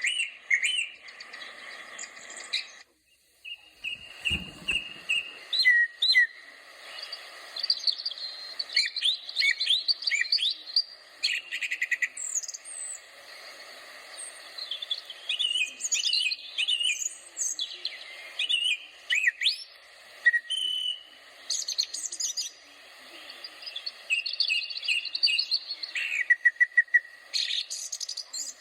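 Songbirds chirping and singing, many short whistled chirps and trills overlapping. About three seconds in there is a brief break and a short low thud; near the end comes a fast trill of repeated notes.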